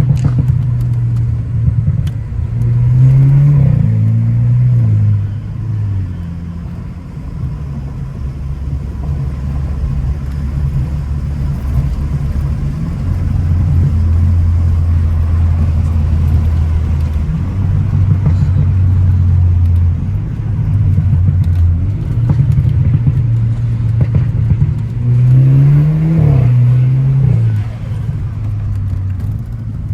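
Car engine under way, pulling hard and shifting: its note climbs and drops twice, about three seconds in and again near the end, with steadier running in between.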